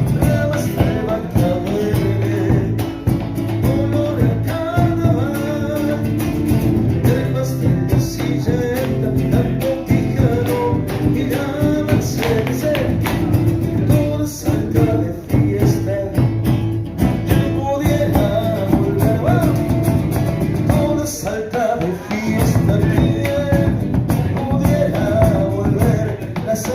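Live Argentine folk music from a peña: strummed guitars with a singing voice.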